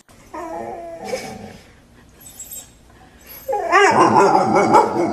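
A puppy whimpering and howling in two bouts, a short one near the start and a louder, longer one from about three and a half seconds in.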